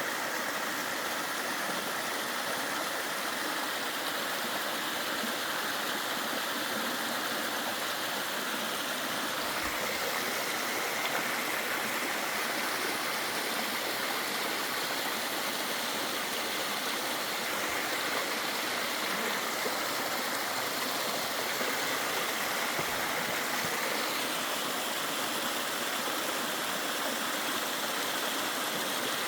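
Mountain stream rushing steadily over rocks, an even, unbroken sound of flowing water.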